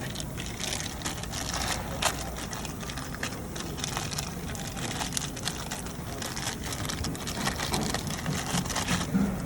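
Irregular rustling and light clicking as vending-machine parts and wiring are handled, with no steady rhythm.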